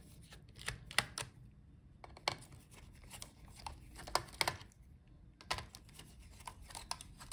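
Faint, irregular clicks and ticks of a precision screwdriver working out a laptop's heatsink screws, metal bit on screw heads and the tool touching the board.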